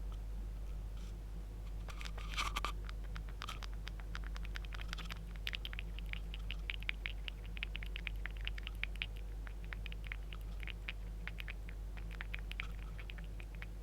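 Mechanical keyboard with lubed Outemu Red linear switches being typed on: a few keystrokes about two seconds in, then fast, continuous typing with soft, wet-sounding clacks. A steady low hum runs underneath.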